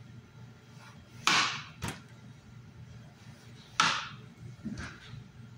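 Kitchen knife slicing through an eggplant and knocking against a wooden cutting board: a sharp knock a little over a second in, another half a second later, a third near four seconds in, and a fainter one soon after.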